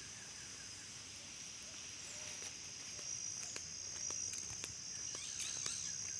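Steady high-pitched insect chorus, with light footsteps on a dirt road as scattered soft clicks.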